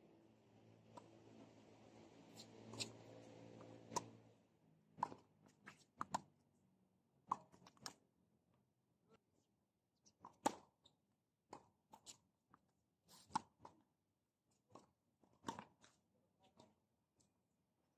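Tennis balls struck by rackets and bouncing on a hard court during a serve and rally: a string of sharp pops and knocks at irregular intervals. A low steady hum runs underneath for the first four seconds.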